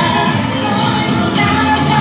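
A girl singing a central Albanian folk song into a microphone over amplified instrumental accompaniment, holding long, wavering notes.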